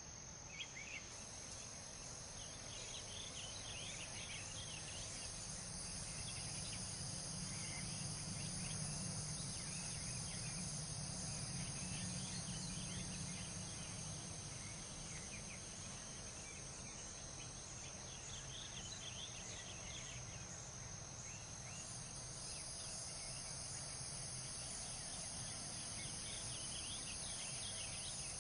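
Crickets chirping steadily in the night air over a low background rumble that swells and eases again through the middle.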